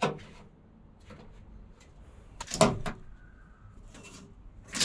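Steel tape measure blade scraping and clattering against the truck's plastic bed liner as it is stretched across the bed, in a few short rattles, the loudest about two and a half seconds in.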